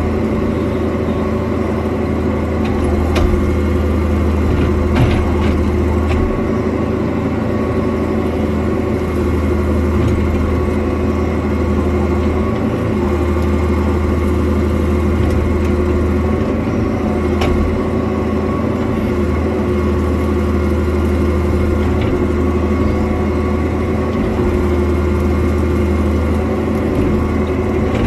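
Cat 305.5 mini excavator's diesel engine running steadily under load while its hydraulic mulcher head shreds brush and grass, with a few sharp ticks of debris striking.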